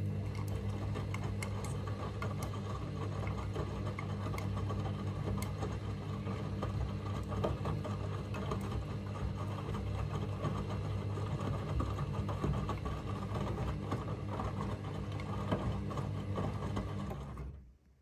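Candy Smart front-loading washing machine tumbling a wash load: the drum motor hums steadily while the wet laundry and suds slosh and click inside the drum. Near the end the drum stops suddenly, a pause in the wash rhythm.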